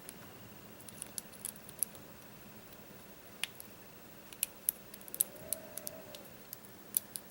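Lock-picking tools, a pick and tension wrench, clicking and ticking irregularly inside a clear plastic 6-pin practice lock. Short, sharp clicks come more often after the middle.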